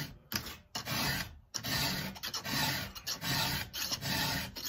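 Round file rasping through the cutters of a chainsaw chain as it is hand-sharpened. The strokes repeat in a steady rhythm, with a couple of short breaks in the first second and a half.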